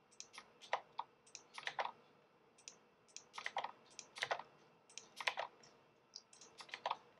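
Computer keyboard keys clicking in quick groups of two or three keystrokes, several times over, as one Lisp function definition after another is sent to the compiler.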